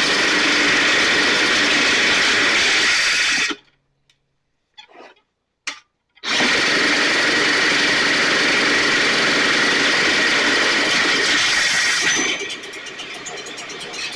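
A power drill spinning the STIHL BR 450 backpack blower's engine over in place of its missing recoil starter. It runs in two long loud stretches that start and stop abruptly, with a short pause between them. About twelve seconds in the drill noise gives way to a quieter, steady running sound, the small two-stroke engine catching and idling.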